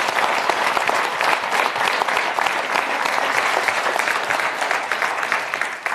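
Studio audience applauding steadily, many hands clapping at once, thinning out near the end.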